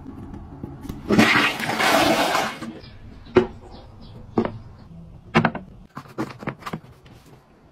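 A toilet flushing in a short rush of water, followed by a series of light, irregular knocks and clicks.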